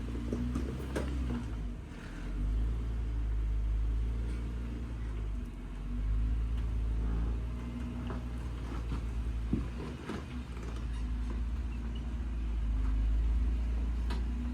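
Off-road 4x4's engine running at low speed, swelling and easing several times as it works up a rocky waterfall climb, with a few sharp knocks.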